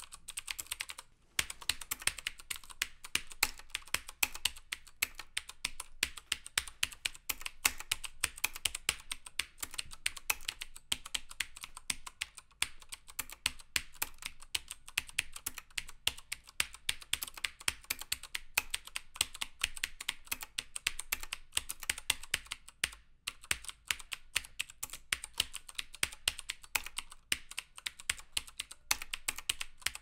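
Fast typing on a MaxKeyboard Nighthawk Z-104 mechanical keyboard with clicky Cherry MX Blue switches, a dense run of sharp keystroke clicks. After a short pause about a second in, the keys are pressed all the way down, bottoming out on each stroke.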